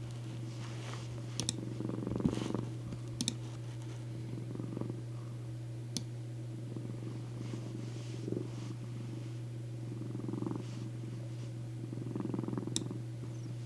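Domestic cat purring close to the microphone, the purr swelling and fading with each breath over a steady low hum. A few faint sharp clicks.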